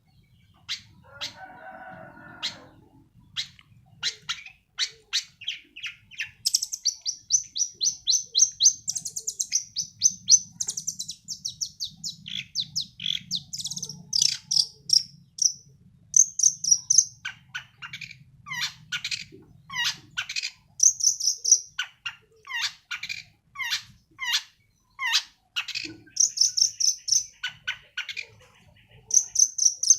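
Young long-tailed shrike (cendet) singing a loud, varied song. It mixes rapid chattering trills with sharp, quick downward-sliding notes, repeated almost without pause.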